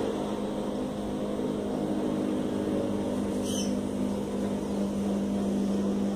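A steady machine hum with a strong low tone that holds at one pitch. A brief high chirp comes about three and a half seconds in.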